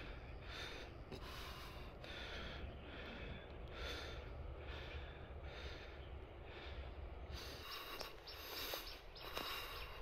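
A person breathing hard and rhythmically close to the microphone, in and out about once every second, as a hiker does while climbing. The breaths get louder near the end, over a steady low rumble.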